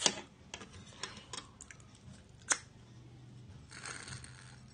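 Mouth sounds of eating noodles: a string of wet clicks and smacks, one sharper than the rest about halfway. Near the end comes a short hiss of sipping a drink through a straw.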